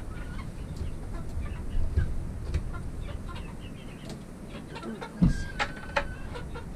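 Chickens clucking with short calls over a steady low rumble, and a sharp thump about five seconds in.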